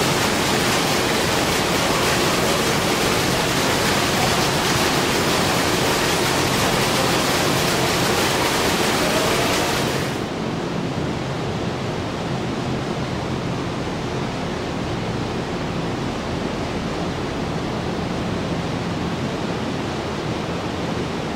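A thick stream of grain mash pouring and splashing into a fermenting vat, a loud steady rushing. About ten seconds in it gives way abruptly to a duller, quieter steady room noise.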